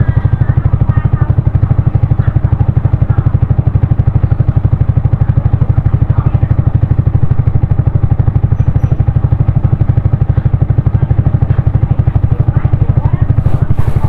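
Yamaha XSR155's single-cylinder engine running steadily, heard from a helmet-mounted camera, its exhaust pulses even and unchanging in pitch.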